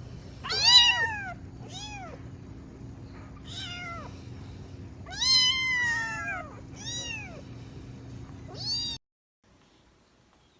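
Cat meowing six times, the longest meow about halfway through; the sound cuts off suddenly near the end.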